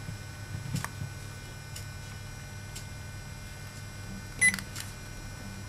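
UNI-T UT71E digital multimeter giving one short electronic beep about four and a half seconds in, the key-press tone of its front-panel buttons. A few faint clicks come before it, over a faint steady hum.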